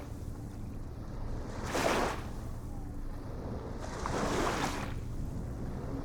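Small ocean waves breaking in a regular rhythm: two splashy surges about two seconds apart, over a steady low rumble of surf.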